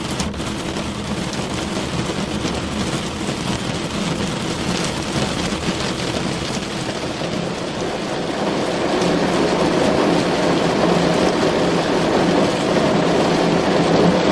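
Rain falling on a car, heard from inside the cabin as a steady wash of noise with a low rumble. It grows louder and fuller about eight seconds in.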